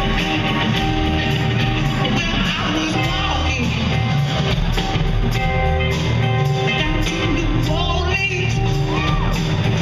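Live rock band playing with electric guitar, bass guitar and drum kit, and a woman's voice singing a line that glides in pitch near the end.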